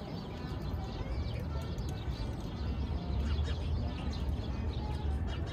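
Small birds chirping in many quick, short calls over a steady low city hum.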